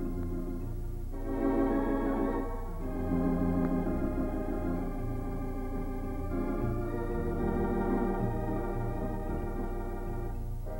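Background organ music: sustained chords held for a few seconds each before changing.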